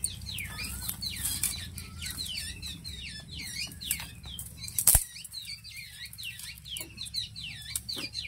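Birds chirping over and over, with rustling and clicks from dry twigs being handled and fed into a clay cooking stove, and one sharp crack about five seconds in.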